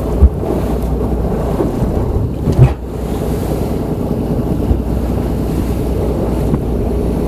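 Wind buffeting the microphone over a boat's running rumble and choppy waves in rough seas. Two heavy thumps stand out, one about a quarter second in and one about two and a half seconds in.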